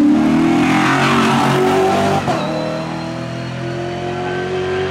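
Aston Martin V8 Vantage GT4's V8 engine at full throttle, loud as the car passes close by. About two seconds in the level drops, and the engine carries on with a steadier, slowly rising note as the car pulls away up the hill.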